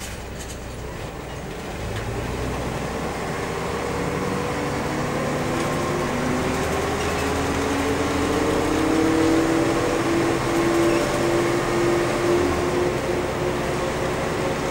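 Mercedes-Benz O305 bus's 200 hp OM407 diesel engine and W3D 080R three-speed automatic transmission heard from inside the cabin, pulling away and accelerating: a steady engine rumble under a whine that climbs in pitch and grows louder, changing near the end.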